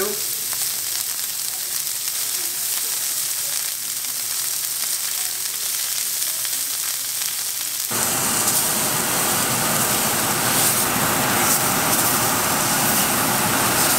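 Blackening-seasoned permit fillets sizzling as they sear in vegetable oil in hot cast iron skillets. About eight seconds in, the sizzle turns suddenly louder and fuller.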